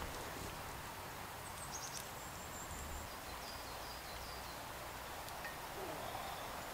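Quiet woodland ambience: a steady soft hiss, with a few faint, high bird chirps about two to three seconds in.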